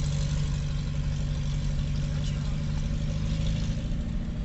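Car engine and road noise heard from inside the moving car: a steady low drone that eases off slightly near the end.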